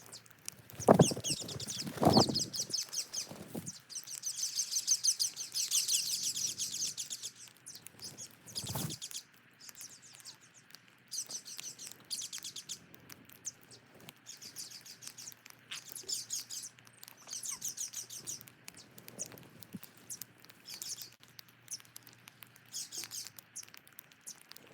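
Small birds chirping in rapid high trills, busiest in the first half and then in shorter bursts. Two loud, low thumps come about one and two seconds in, and another near nine seconds.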